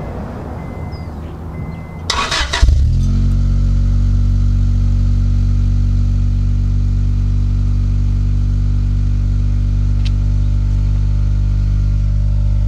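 1997 Honda Accord with an aftermarket cat-back exhaust starting up: a brief crank about two seconds in, the engine catches, then idles steadily with a low, even exhaust note.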